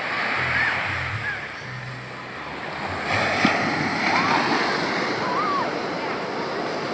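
Waves breaking on a beach: a steady rushing surf noise that swells about three seconds in. A few short whistles that rise and fall in pitch sound over it.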